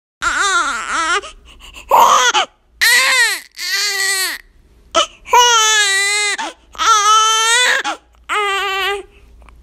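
Infant crying in a run of about eight short wails, each up to about a second long, with brief pauses between them.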